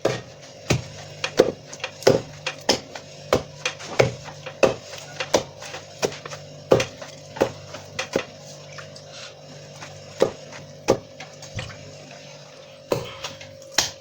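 Rhythmic wooden knocking, about three knocks every two seconds, over a steady low hum.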